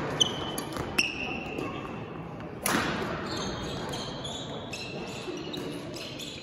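Badminton rally in a gym: sharp racket strikes on the shuttlecock, the loudest a little under three seconds in, with short high squeaks of court shoes on the floor in between.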